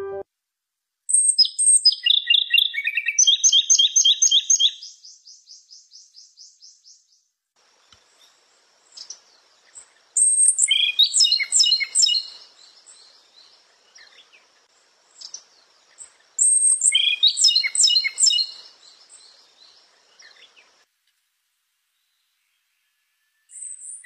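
A songbird singing three loud, varied phrases a few seconds apart, the first ending in a fast trill that fades out. A faint, steady high-pitched hum runs behind the later phrases.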